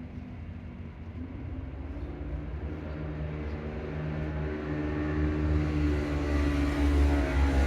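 A motor vehicle's engine running and drawing nearer, its hum growing steadily louder over a low rumble.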